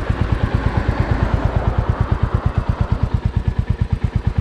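Royal Enfield Classic 350's single-cylinder 349 cc engine idling, a steady even thump of about eight firing pulses a second.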